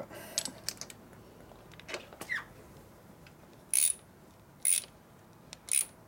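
Hand ratchet clicking in three short bursts about a second apart near the end, after a few light metallic clicks.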